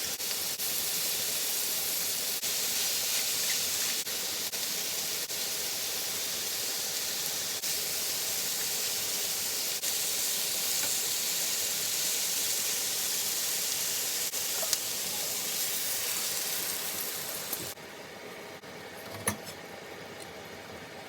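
Chicken frying in a pan with a steady sizzle that cuts off suddenly near the end, followed by a single sharp click.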